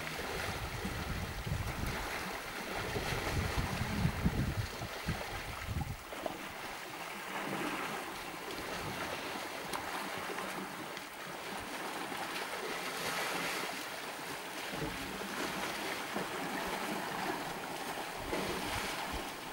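Elephants wading and splashing in a shallow waterhole, water sloshing around their legs and bodies. A low rumble of wind on the microphone runs through roughly the first six seconds.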